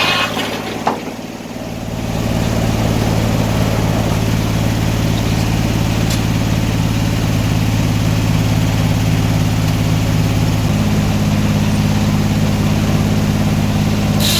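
Sawmill engine running at a steady speed, with a single click about a second in and a slight shift in its note near the end.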